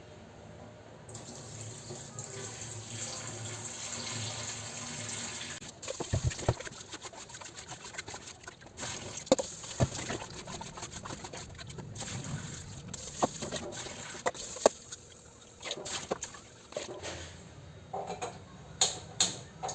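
Water running from a kitchen tap into a pot while rice is washed and set to cook. From about six seconds in come sharp knocks and clinks of the pot and utensils over fainter splashing.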